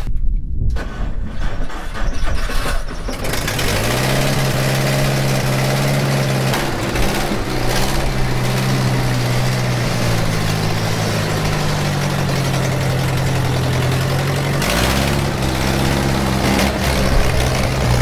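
A 1970s skid steer's carbureted gasoline engine is cranked, catches about three seconds in and rises to a steady, even running speed. It then picks up speed near the end as the machine moves off. There is no up-and-down pulsing: the freshly cleaned carburetor, fuel filter and adjusted float have cured the revving surges.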